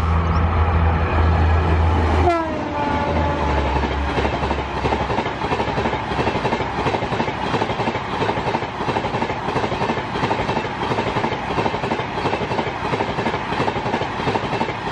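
WAP5 electric locomotive of the Bhopal Shatabdi Express passing at high speed, its multi-tone horn dropping sharply in pitch as it goes by about two seconds in. Then the coaches rush past with a steady rapid clatter of wheels on the rails.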